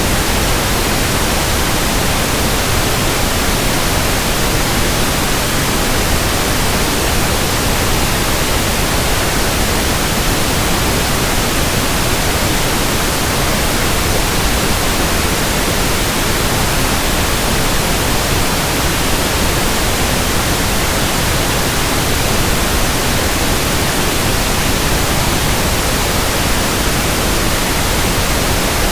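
Pink noise test signal, a steady, unchanging hiss across the whole audible range, played for measuring the frequency response of a sound system.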